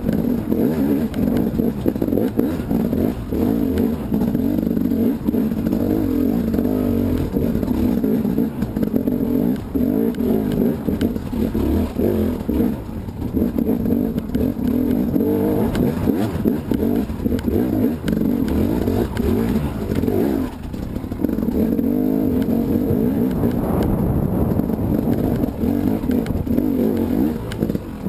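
KTM 300 two-stroke enduro motorcycle engine revving up and down under constant throttle changes while climbing over rocks and roots, with knocks from the bike over rough ground. The revs briefly drop off about twenty seconds in, then pick up again.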